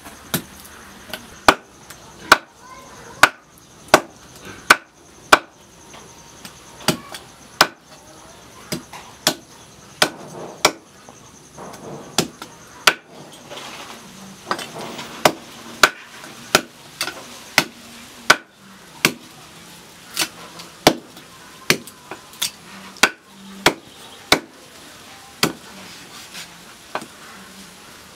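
Cleaver chopping raw pork into mince on a thick round wooden chopping board: sharp, even knocks about one and a half a second.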